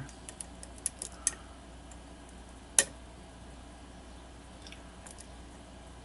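Light, scattered metallic clicks of a hook pick working the pins inside a challenge lock's cylinder under tension, with one sharper click about three seconds in.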